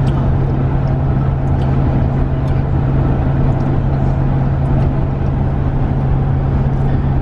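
Steady engine and road noise inside a moving van's cabin, a constant low drone with no change in pitch.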